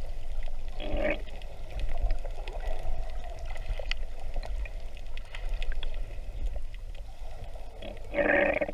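Underwater recording: a steady low rumble with water gurgling, broken by a short buzzing, tone-like sound about a second in and a louder one near the end. Their source is unidentified.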